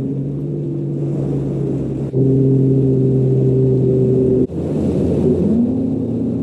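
A bass boat's outboard motor runs at speed with a steady drone. Its sound shifts abruptly twice, and the pitch rises briefly near the end.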